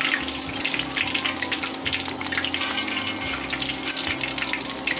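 Battered tempura vegetables deep-frying in a pot of hot oil: a dense, steady crackling sizzle, with a steady low hum underneath.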